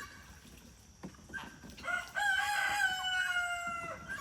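Rooster crowing: one long call of about two seconds, starting about two seconds in, after a few faint clucks.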